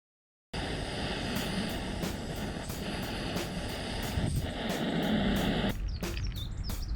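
Background music with a steady fast beat, starting suddenly about half a second in; a dense noisy layer under the beat cuts off near the end.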